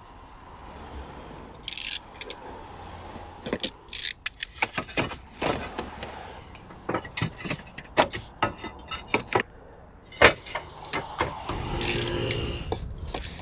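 Roof tiles being handled and laid back in place: irregular clinks, knocks and scrapes of tile against tile.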